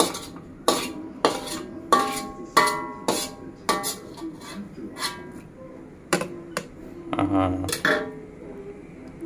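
Metal utensil striking cookware: a series of ringing clinks, about one every half second for the first four seconds, then a few more spaced further apart.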